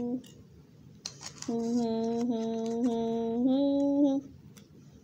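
A high voice holding one long, steady note for about two and a half seconds, with a brief hiss just before it.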